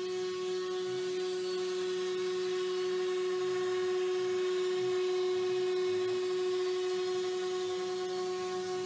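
Laguna CNC router's spindle running at high speed with a steady high whine, held at one pitch, before it cuts the rosette pocket and sound hole in a guitar top.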